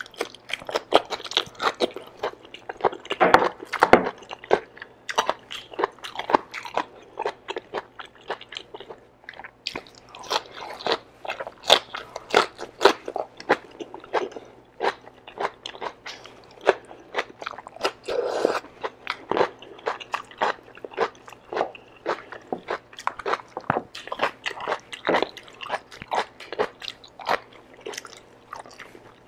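Close-miked eating of kare-kare, oxtail and long beans in peanut sauce, eaten by hand: biting and chewing, heard as a dense run of short mouth clicks and bites, several a second.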